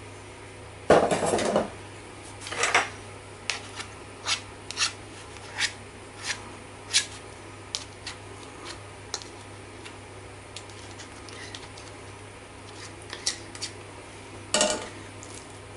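Metal spoon and fork clinking and scraping against each other and the ceramic pie dish while spreading mashed potato: a loud scrape about a second in, a run of light clicks, and another scrape near the end.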